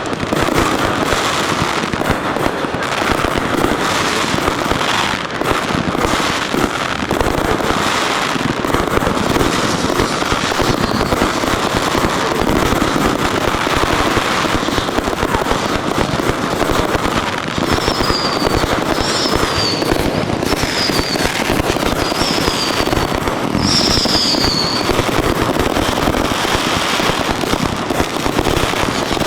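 Fireworks display going off in a dense, unbroken barrage of bangs and crackling. A few short falling whistles sound over it about two-thirds of the way through.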